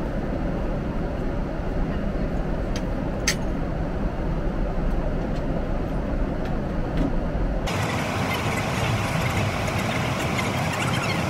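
Steady cabin noise of a Boeing 777-300ER in cruise, a constant rumble and rush of air. Two light clinks about three seconds in as canapé plates are set down from a metal serving tray. About eight seconds in, the noise turns suddenly brighter and less boomy.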